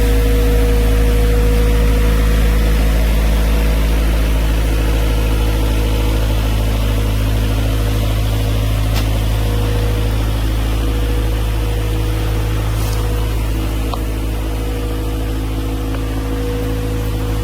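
A motor-driven machine running steadily at constant speed, with a deep hum and a steady whine.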